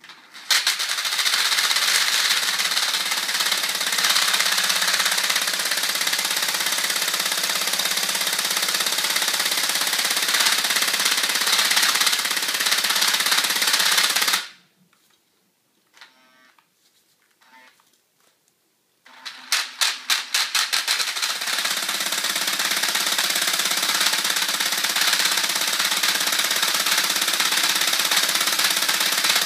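Cordless drill spinning a homemade magnet flywheel mechanism, running steadily. It stops abruptly about halfway through, then after a few seconds starts again with a quick series of pulses that speed up into a steady run.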